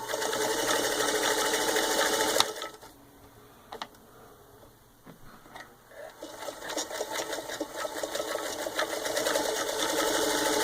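1938 Singer 221-1 Featherweight sewing machine stitching through four layers of denim: it runs for about two and a half seconds and stops, a click sounds in the pause, then it starts again about six seconds in, builds up gradually and runs steadily.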